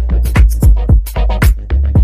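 Background music with a fast, steady beat of heavy kick drums and bass.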